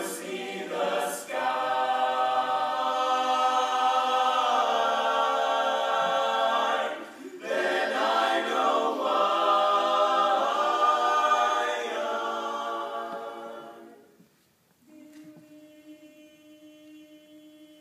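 Male a cappella group singing a full chord passage, with a brief break about seven seconds in. The singing fades away after about thirteen seconds, and a soft, steady low chord is held quietly through the end.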